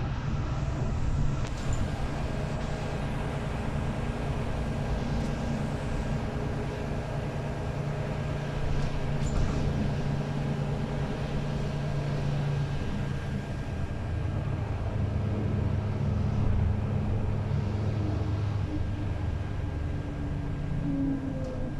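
Inside a moving city bus: the steady drone of its engine and drivetrain, dropping to a lower pitch about halfway through as the engine speed changes.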